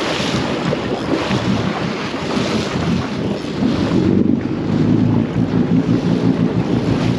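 Wind buffeting the microphone over the steady hum of a 31-foot Bertram sportfishing boat's engines, with sea water washing around the hull.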